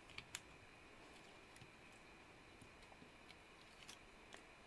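Near silence: faint room tone with a few small, sharp ticks of fingers pressing and handling card stock and foam tape, two of them just after the start.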